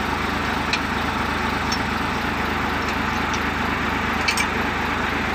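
Hino FM260TI truck's six-cylinder diesel engine running steadily at idle, a fast even rumble. A few light metallic clicks come over it from a wrench being worked on the injection lines at the injection pump.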